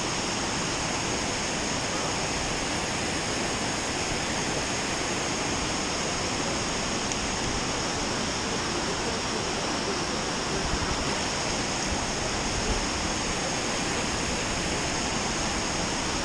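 Water pouring down a concrete dam spillway into the pool below: a steady, even rush of falling water.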